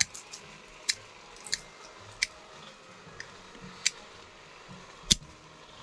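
Hand pruning shears snipping thin shoots off a Japanese white oak: about six short, sharp cuts at uneven intervals, the loudest near the end.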